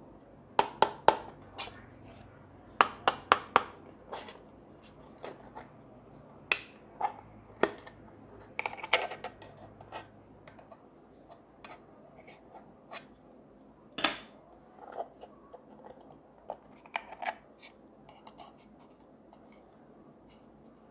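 Plastic battery compartment covers on a desk ornament's plastic base being unclipped and pried off by hand: a series of sharp clicks and snaps. There are quick runs of three or four clicks about a second in and again around three seconds, scattered single clicks after that, and the loudest snap about fourteen seconds in.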